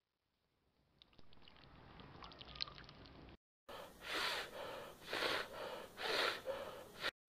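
A person gasping: faint scattered clicks at first, then three heavy gasping breaths about a second apart, with a weaker fourth near the end.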